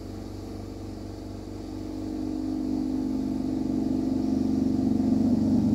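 Steady mechanical hum of a motor with a fine, even pulse, growing louder over the last few seconds.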